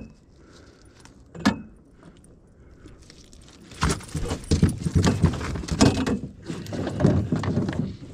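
A landing net and a freshly caught coho salmon knocking and rattling against the floor of a small aluminium boat. There is a single click about 1.5 seconds in, then from about four seconds in a steady run of clatters, thumps and metallic rattling.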